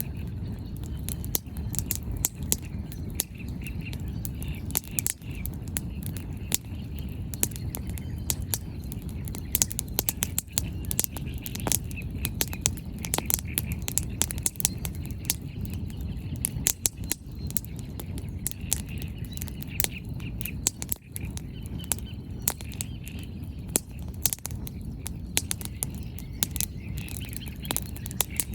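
Wood bonfire crackling, with frequent, irregular sharp pops and snaps of burning firewood over a steady low rumble.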